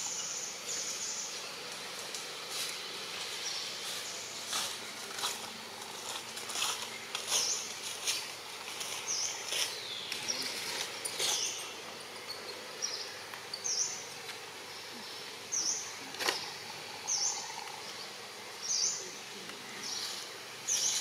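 Outdoor ambience: a steady hiss with a short high buzz at the start, then short high chirps repeating about once a second through the second half.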